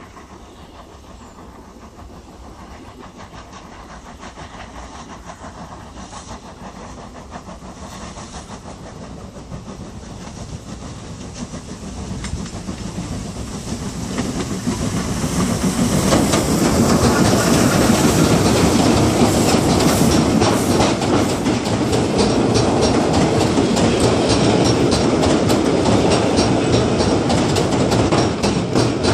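Steam-hauled passenger train approaching and passing close by. The sound builds steadily for about fifteen seconds as the locomotive nears, then stays loud, with a rapid clatter of wheels over the rail joints as the coaches run past.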